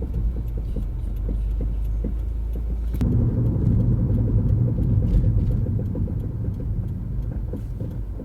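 2015 Subaru WRX's brakes making a low rumbling, clattering noise while the car slows, which the owner likens to a roller coaster coming to a stop. The noise grows sharply about three seconds in and eases off over the last couple of seconds. The owner takes it for a fault that the dealership has not been able to cure.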